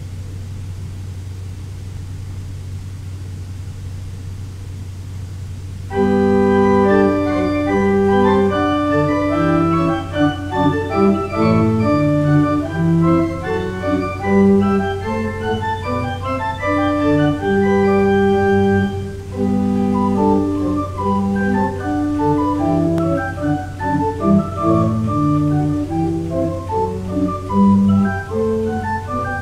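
A steady low hum for about the first six seconds, then a church organ starts playing music of several parts in held notes.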